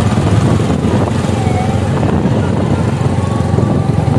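Motorcycle engine running steadily under way, a low drone with rapid pulsing.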